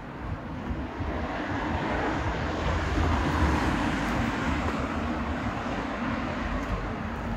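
A car passing along the street, its engine and tyre noise swelling to a peak about three seconds in and then slowly fading as it moves away.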